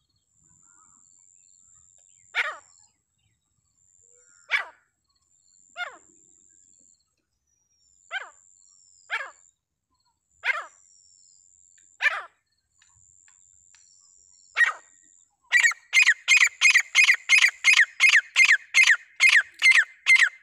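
Francolin (teetar) calling: eight sharp single calls spaced one to two seconds apart, then a fast run of about three calls a second near the end. A faint, high steady whine comes and goes underneath.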